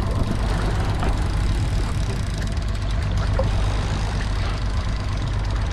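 Boat's outboard motor running steadily at low speed, a constant low hum, with a steady hiss of water and air over it.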